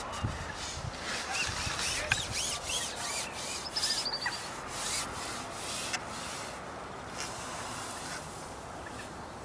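Scratchy rubbing and rustling noise, repeated through the first half, with a bird chirping several times and giving a quick trill about four seconds in.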